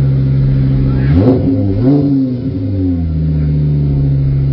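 Car engine idling with two quick throttle blips, about a second in and again near two seconds, its pitch rising and falling back each time before settling into a steady idle.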